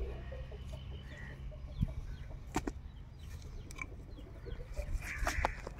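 Chickens clucking faintly in the background, with two sharp knocks a little under a second apart, about two seconds in.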